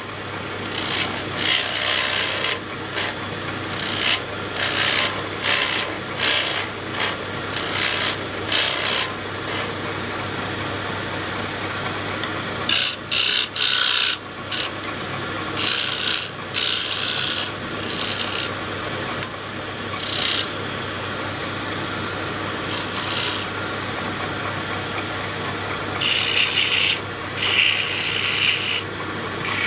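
Wood lathe running with a steady hum while hand-held turning tools scrape a spinning yellow pine wheel blank in many short passes. The passes come thick and fast at first, thin out in the middle, and pick up again near the end.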